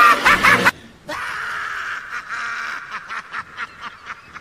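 Maniacal Joker-style cackle from an intro sound effect. A loud scream-like cry cuts off suddenly under a second in, then a run of short 'ha' bursts follows, about four a second, growing fainter.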